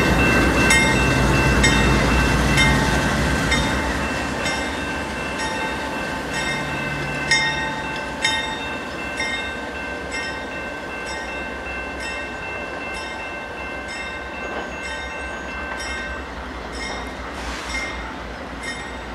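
Three GE AC4400CW diesel locomotives running light, rolling past and drawing away. The deep rumble of their 16-cylinder diesel engines fades steadily over the first half. A steady high-pitched squeal from the wheels runs on throughout, with repeated sharp clicks of wheels over rail joints.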